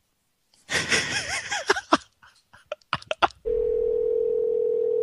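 Telephone ringing tone heard down the line as a call is placed: a steady tone starts about three and a half seconds in and holds. Before it come a burst of noisy sound and a few clicks.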